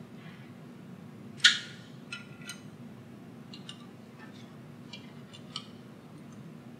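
A hex key working the 5 mm hex bolts on a ply separator's blade, metal on metal: one sharp clack about a second and a half in, then a few lighter ticks and clinks, over a faint steady hum.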